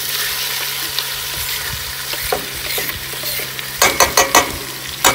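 Diced raw chicken sizzling and frying in a hot stainless steel pot on a camping gas stove as it is tipped in and stirred with a spoon. A quick run of sharp clacks against the pot about four seconds in, and one more near the end.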